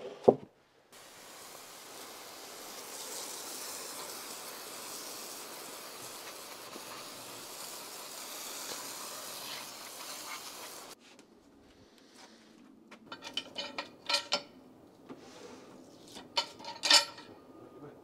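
Pressure washer spraying water across freshly milled poplar slabs: a steady hiss that starts and stops abruptly. A loud knock comes just at the start, and a run of sharp knocks and clacks follows the spraying.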